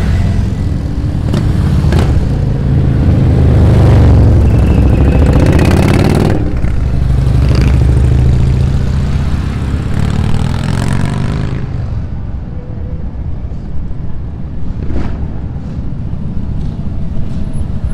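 Motorcycle engines going past on a busy street, loudest about four and eight seconds in, then dying away after about twelve seconds to quieter street noise.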